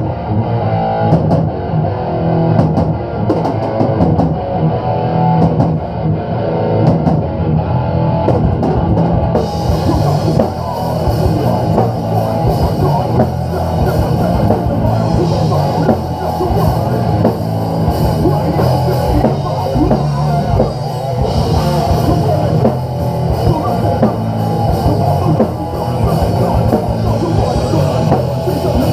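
Live heavy rock band playing loud: distorted electric guitar, bass guitar and drum kit. The cymbals fill out the top of the sound about nine seconds in.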